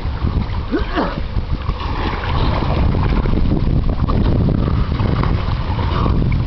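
Wind buffeting the microphone, with water splashing as a leatherback turtle and swimmers thrash at the sea surface.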